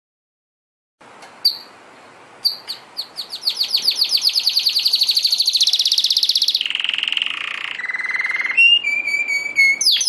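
Canary singing: after a second of silence, a few single chirps, then a long rapid trill that swells. It drops to lower buzzing trills and ends with a few clear whistled notes.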